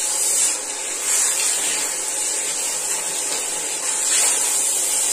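Running water spraying steadily onto hair and scalp, rinsing out shampoo lather.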